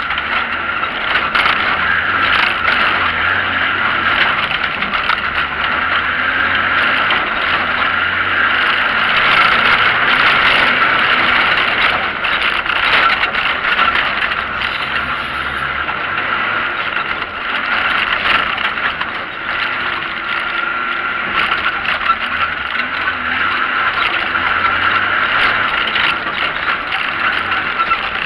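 Off-road car's engine running hard as the car drives over a rough dirt track, heard from inside the cabin, with frequent knocks and rattles from the bumpy ground.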